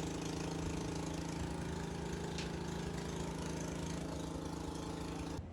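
A small engine running steadily at an even, unchanging pitch, cut in and out sharply at both ends.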